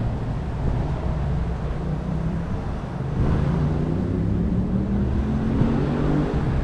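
Road traffic on a busy street: vehicle engines running, with one engine's drone growing louder about halfway through and rising in pitch in steps.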